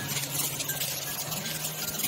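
Background music with held low notes that change pitch every so often, over a steady hiss.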